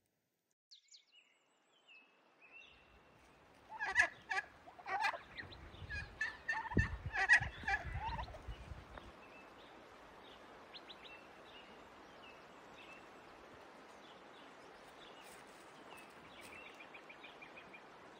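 Farmyard fowl calling in a run of loud, stuttering bursts from about 4 to 8 seconds in. Small birds chirp faintly throughout, over a steady outdoor hiss.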